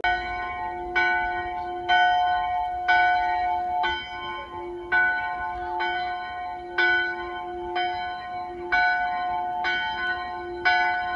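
Church bells ringing, about one strike a second, each strike ringing on into the next with several tones sounding together.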